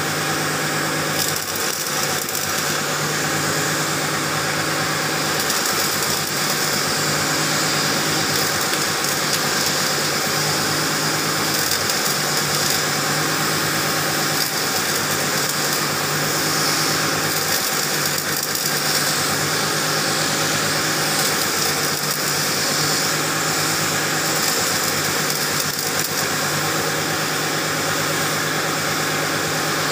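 Stick welding on a Case 580M backhoe's front steering spindle: the steady hiss and crackle of the arc, with a low electrical hum that rises and drops every couple of seconds.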